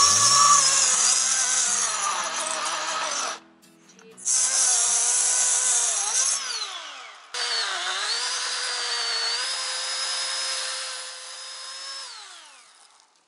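Chainsaw cutting into a standing tree, its pitch dipping and recovering under load. It comes in three spliced stretches, and twice the motor winds down with a falling pitch, around the middle and near the end.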